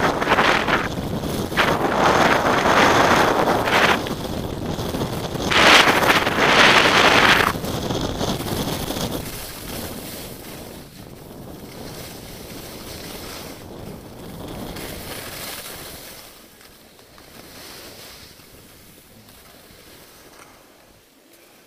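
Skis hissing and scraping over snow, with wind rushing across the camera microphone during a downhill run. The noise surges loudly several times in the first eight seconds or so, then fades away as the skier slows down.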